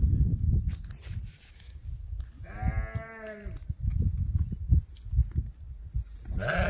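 A sheep bleats once about two and a half seconds in, a wavering call about a second long, over a low, uneven rumble.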